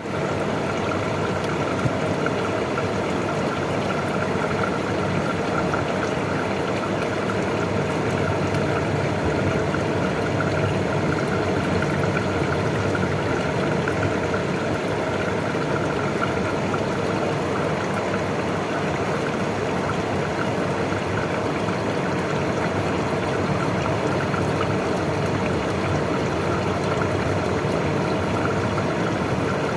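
Evaporative air cooler running steadily: fan blowing, with water trickling through its cooling pads.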